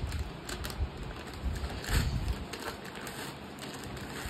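Stiff paper takeaway bag rustling and crinkling as hands work its sealed, folded top open, with irregular small clicks and light knocks, the loudest about two seconds in.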